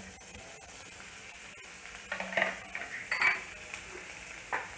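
Chopped onions sizzling in hot oil in a metal kadai with tempered mustard seeds, urad dal and curry leaves, a steady frying hiss. A few scrapes and clinks against the pan come about two to three and a half seconds in, and once more near the end.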